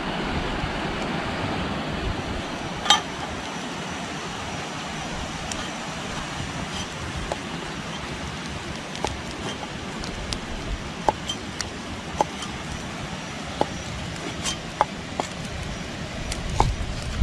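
Light, sharp clinks and taps every second or so over a steady rushing background noise, the loudest about three seconds in.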